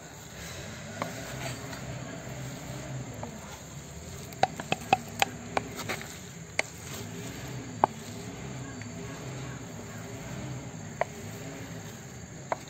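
Flat spatula gently turning cooked chicken biryani in a large aluminium pot after dum, lifting the bottom rice to the top: soft scraping through the rice, with a quick run of sharp clicks of the spatula against the pot about halfway through and two single clicks later.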